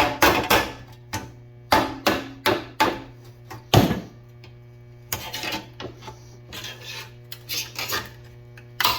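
Sheet-metal floor pan being trimmed and worked by hand: irregular scraping and clanking strokes, denser in the first few seconds with a sharp loud one about four seconds in, then lighter scrapes, over a steady low hum.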